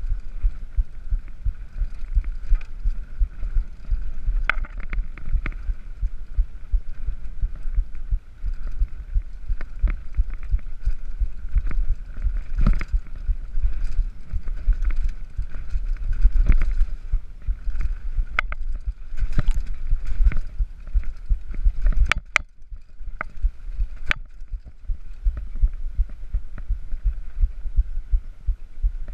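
Mountain bike descending a dirt trail at speed: wind buffeting the microphone in a steady low rumble, with tyre noise and sharp knocks and rattles from the bike over bumps, bunched together around two-thirds of the way through.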